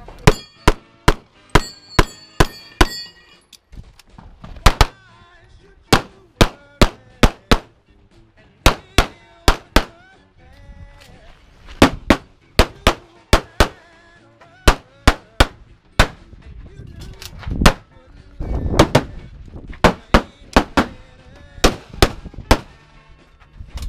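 A competition pistol fires rapid strings of shots a few tenths of a second apart, with short pauses between strings. During the first string, steel targets ring as they are hit.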